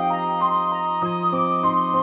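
Background music: a slow melody of changing notes over a single held low note.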